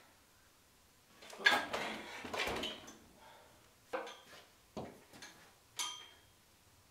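Handling noises at a floor drill press. A rustling clatter comes about one and a half seconds in, then a few separate sharp clicks, the last a short metallic clink with a brief ring.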